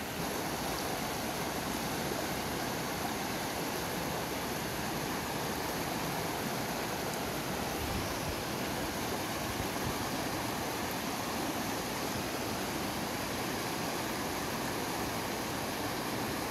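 A shallow, rocky mountain river rushing steadily over stones and through small rapids.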